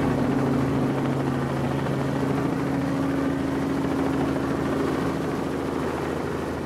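Helicopter running close by, heard from its open door: a steady engine hum with a fast rotor chop over rushing air, easing slightly toward the end.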